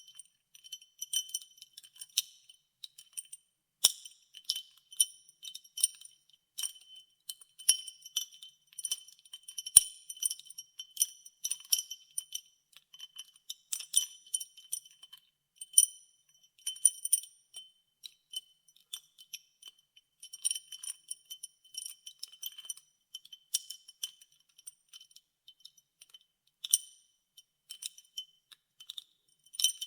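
Ice cubes clinking and tinkling against the sides of a glass as ice water is stirred, in irregular runs of bright, ringing clinks.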